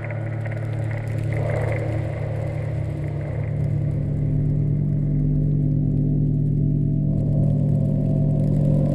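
Low, steady rumbling drone of a horror ambience soundscape, with sustained deep tones that swell louder about four seconds in.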